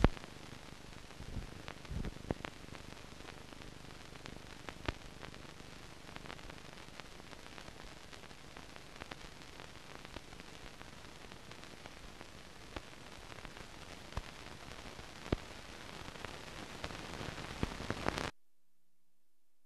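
Surface noise of an old film soundtrack running with nothing recorded on it: a steady faint hiss with scattered crackles and pops. It cuts off suddenly near the end.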